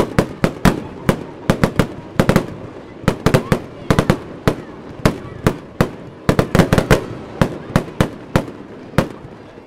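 A fireworks display: sharp bangs and pops in quick, irregular succession, several a second, as aerial shells burst into crackling silver-star showers.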